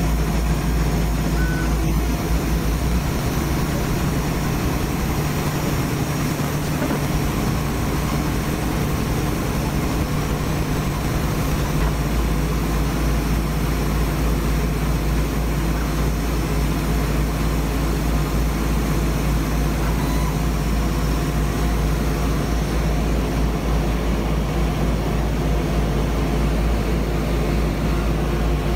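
Laser cutter running through a cut: a steady, even drone with a strong low hum, unbroken throughout.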